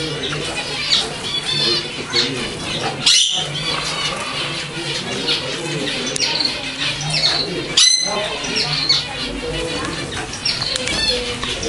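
A flock of caged zebra finches calling: a continual chatter of many short calls, with two louder calls about three and eight seconds in.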